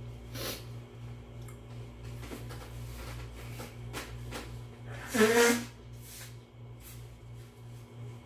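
Soft mouth sounds of someone eating, with scattered small clicks over a low steady hum. About five seconds in comes a short, loud voiced sound from the eater.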